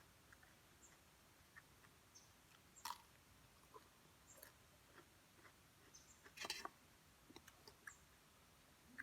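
Faint chewing and small wet mouth clicks of someone eating, with a louder crunchy burst about three seconds in and another about six and a half seconds in.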